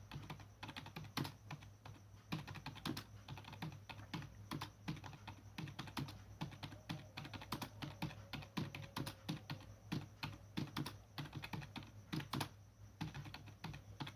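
Computer keyboard being typed on, a quick steady run of key clicks several a second at about 45 words a minute, over a low steady hum.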